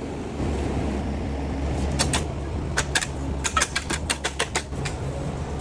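A steady low mechanical hum, with a quick run of about a dozen sharp clicks and taps in the middle.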